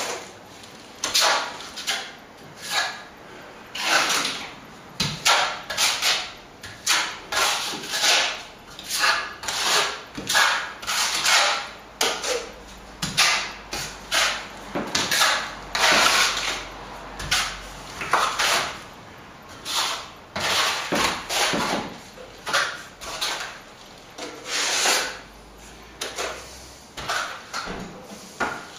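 Steel plastering trowel scraping across the wall in repeated short strokes, about one or two a second, as it spreads and smooths a white set coat of plaster.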